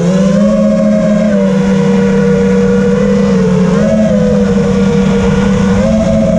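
5-inch FPV racing quadcopter's brushless motors (iFlight Xing 2306.5, 2550KV on 4S) with three-blade props buzzing at steady cruise throttle in flight. The pitch bends up briefly about four seconds in and rises again near the end as the throttle changes.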